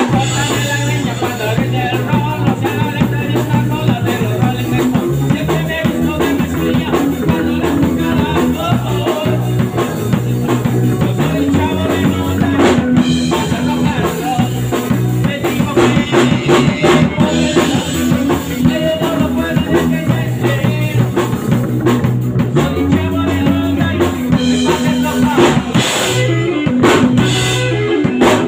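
Live rock band playing: electric bass holding low notes under a busy drum kit beat with cymbals, and electric guitar.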